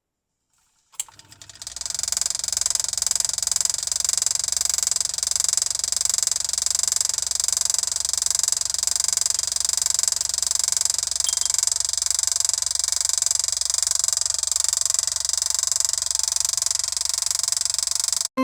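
A small motor-driven device starting up about a second in and running steadily with a fast, high buzzing rattle over a low hum, cutting off suddenly near the end.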